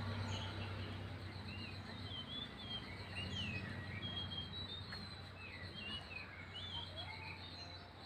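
Small birds chirping and twittering in short, quick notes, over a steady high insect trill.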